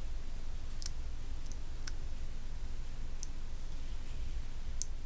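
Lipstick being applied to the lips: a few faint, short, wet clicks of the lips and mouth, scattered irregularly, over a steady low hum.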